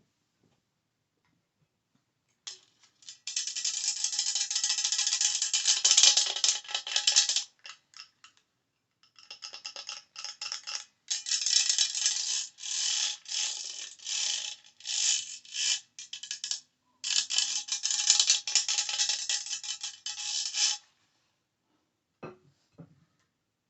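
Close-up rasping, ratchet-like handling noise in three long stretches, broken by short clicks and a gap, the way objects sound being worked right at an ASMR microphone.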